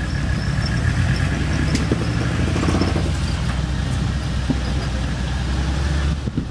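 Mercedes OM617 five-cylinder diesel engine in an off-road Toyota, running at low revs as the vehicle crawls up a rock ledge, with a few faint clicks. The low rumble eases off near the end.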